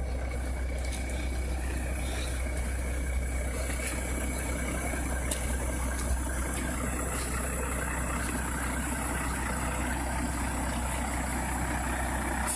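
Diesel engine of a Volvo logging truck running steadily as the loaded truck creeps down a dirt road, with a couple of faint knocks midway.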